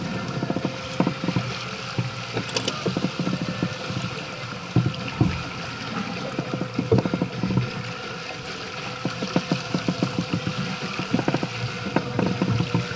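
Sailing yacht under way in choppy water: a steady wash of water along the hull, broken by frequent irregular low thumps and slaps.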